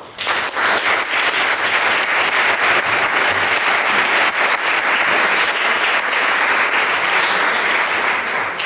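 Audience applauding: many hands clapping break out all at once and keep up steadily.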